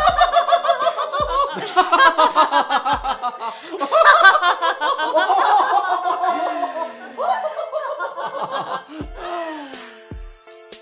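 A man and a woman laughing together at length over background music with a low, regular drum beat. The laughter dies away about nine seconds in, leaving the music.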